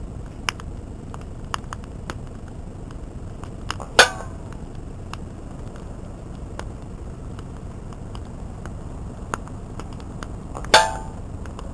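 Two shots from a Webley Raider 10 pre-charged pneumatic air rifle, about seven seconds apart, each a sharp crack with a short metallic ring; the second comes about a second before the end. A few faint clicks fall between them.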